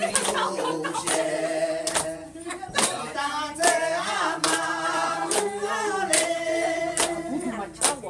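A group of Aini (Akha) women singing together in long held, wavering lines, clapping their hands on a steady beat a little more than once a second.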